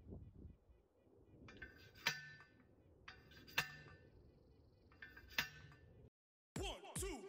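A hand-held T-post driver strikes a steel fence T-post three times, about a second and a half apart. Each blow is a sharp metallic clang that rings briefly. After a short gap of silence, music with a beat starts near the end.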